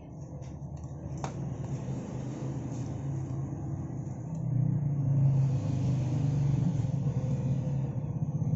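Low steady rumble of a running engine, louder from about four seconds in, with a single sharp click about a second in.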